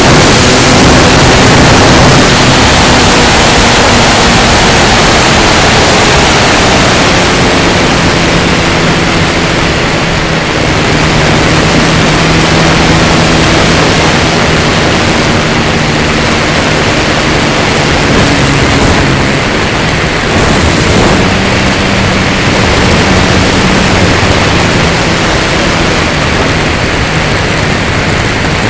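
Wind rushing over the onboard camera of an E-flite Carbon-Z Cessna 150 RC plane in flight, with the hum of its electric motor and propeller changing pitch several times as the throttle changes.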